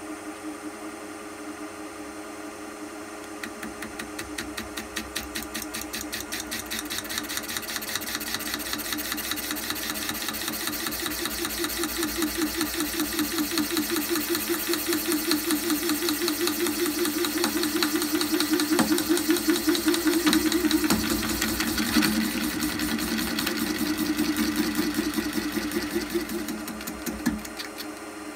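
Milling machine cutter enlarging the opening in a thin metal exhaust escutcheon plate, with a steady, fast, regular pulsing hum. It builds in loudness over the first two-thirds and eases off near the end.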